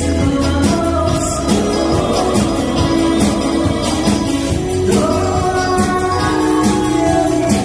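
A woman singing a Korean trot song over musical accompaniment with a steady beat.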